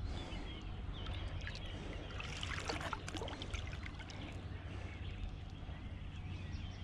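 Water splashing and trickling while a landed wels catfish is handled and unhooked in the shallows, with a cluster of short splashes and crackles about two to three seconds in, over a steady low rumble.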